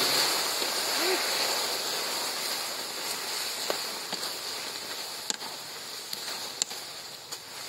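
Thick sauce boiling and sizzling in a wide aluminium wok over a wood fire as dough balls go in and are stirred with a ladle: a steady hiss that slowly fades, with a few sharp clicks from the ladle or popping bubbles in the second half.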